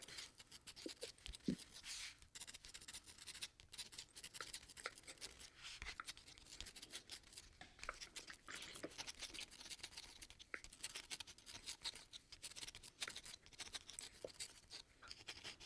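A pen writing, heard as faint, irregular scratching strokes.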